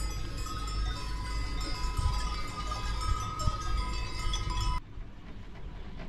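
Many small bells ringing together in a dense, continuous jangle of overlapping tones. They cut off abruptly about five seconds in, leaving a quieter outdoor hiss.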